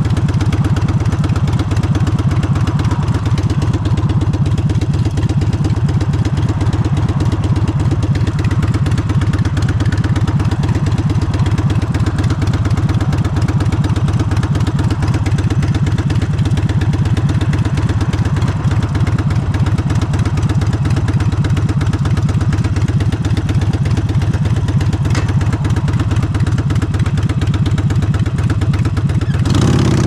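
Harley-Davidson Forty-Eight's 1200 cc air-cooled V-twin running steadily through Vance & Hines exhaust pipes, a dense low pulsing that holds even and picks up just before the end.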